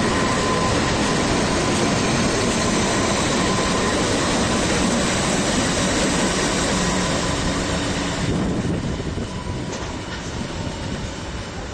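Three coupled Pacific National NR class diesel-electric locomotives passing close by, with steady engine rumble and wheel-on-rail noise. The sound eases off and gets quieter about eight seconds in.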